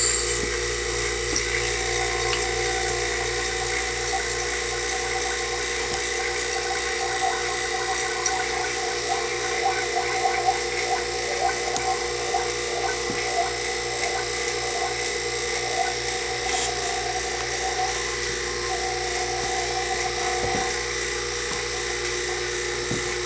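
Electric vacuum pump running steadily, evacuating a plastic vacuum chamber.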